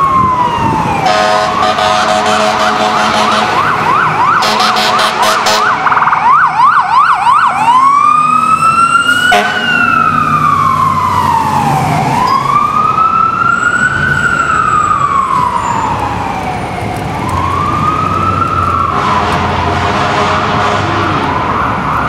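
Fire truck siren on a 2009 Spartan Gladiator aerial tower truck responding to a call. It switches from a slow wail to a fast yelp, with long air-horn blasts over it, then goes back to slow wailing. Near the end the air horns blast again.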